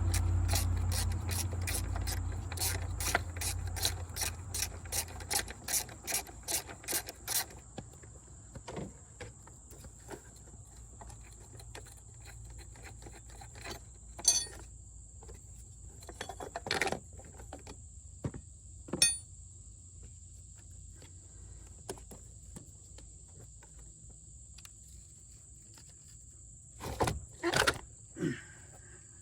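A run of even mechanical clicks, about two to three a second, over a low hum that fades away; the clicking stops about seven seconds in. Then come a few scattered knocks and taps against a steady high, thin insect-like tone.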